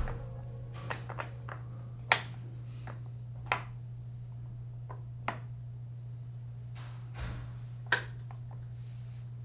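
Wooden sliding pieces of a Karakuri puzzle box clicking and knocking as they are pushed in and worked out step by step: a few separate sharp clicks, the loudest about two, three and a half and eight seconds in. A low steady hum sits underneath.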